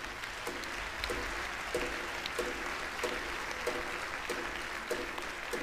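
Audience applause, with a steady ticking beat about every two-thirds of a second beneath it. It cuts off abruptly at the end.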